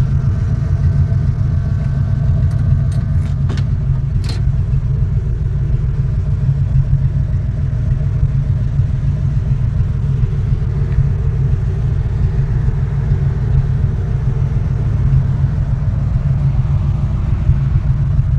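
Steady low rumble of a 1972 Pontiac Grand Prix's V8 and road noise, heard from inside the moving car's cabin. A few sharp clicks come about three to four seconds in.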